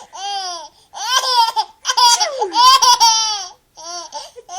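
Baby laughing: a run of about five high-pitched squealing laughs with short breaths between them, the longest one near the middle.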